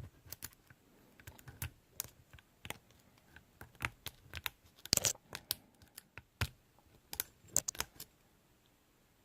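Metal lock picks clicking and scraping irregularly inside a Mindy padlock's keyway during picking, with scattered sharp clicks, the loudest about five seconds in. The clicking stops about a second before the end.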